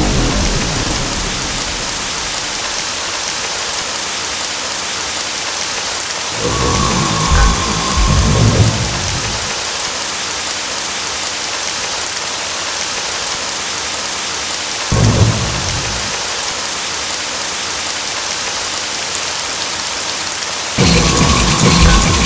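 Steady hiss of heavy rain, with two low rumbles of thunder about six and fifteen seconds in. A louder, denser noise cuts in suddenly near the end.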